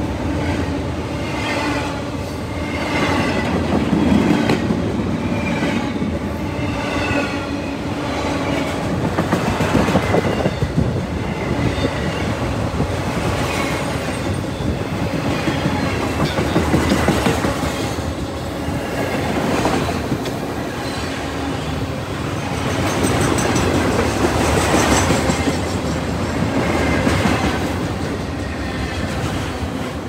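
A long string of autorack freight cars rolling past at close range: a steady rumble and clatter of steel wheels on the rails, swelling and easing every few seconds as the cars go by.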